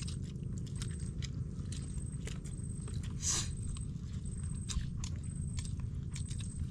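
Close-up eating sounds: people biting and chewing cooked fish, with scattered small crunches and clicks and a short hiss-like sound a little over three seconds in.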